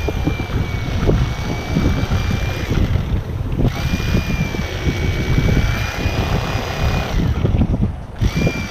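Wind buffeting the camera's microphone: a loud, uneven rumble, with a thin steady high whine over it that breaks off twice.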